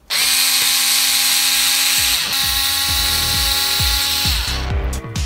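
Cordless electric screwdriver running with a steady motor whine as it drives screws into the bumper mount on an RC car's chassis plate. It stops briefly about two seconds in, runs again, and winds down near the end.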